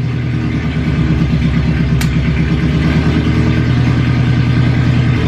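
Scion FR-S's 2.0-litre flat-four engine idling steadily just after starting, with its clutch and throwout bearing newly replaced. A single sharp click about two seconds in.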